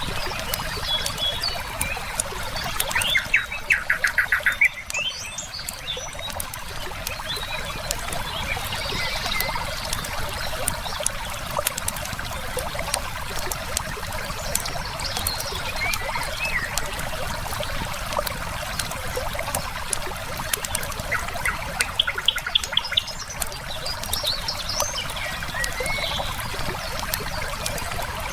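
A river running steadily, with the light crackle and pops of a wood fire and songbirds calling. A bird gives a fast, loud chirping trill about three seconds in and again near the end.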